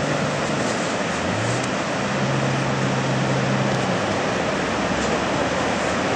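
Jet rescue boat's engine running hard through the surf, its pitch rising about a second in and holding steady until it drops away about four seconds in, over a constant rush of breaking waves and spray.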